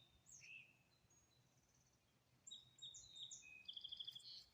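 Small songbirds chirping faintly: a couple of short high chirps near the start, then a cluster of high notes with a quick trill about three seconds in.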